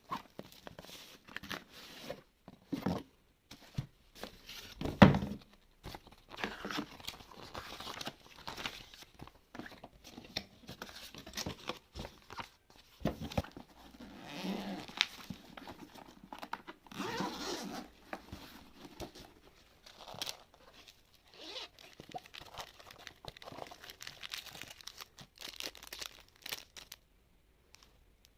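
Packaging being handled and opened: irregular rustling, tearing and crinkling, with scattered clicks and knocks and one loud thump about five seconds in.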